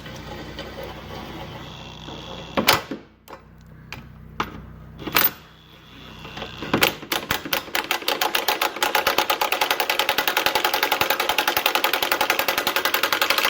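Impact wrench tightening 19 mm hitch mounting bolts. A few short sharp knocks come first, then about seven seconds in it runs continuously with a rapid, even hammering.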